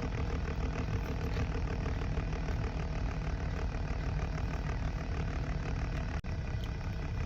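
Car engine idling, heard from inside the cabin as a steady low rumble. The sound drops out for an instant about six seconds in.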